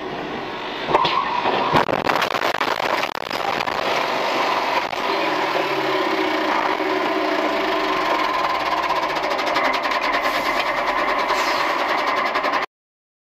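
Road collision between a truck and an SUV: two sharp bangs about a second in, followed by a steady, rapidly rattling engine running. The sound cuts off abruptly near the end.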